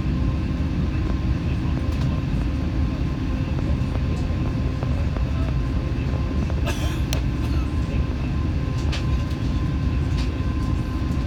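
Airbus A380 cabin noise at a window seat over the wing: a steady low rumble from the engines, with a few light clicks and a brief hiss about seven seconds in.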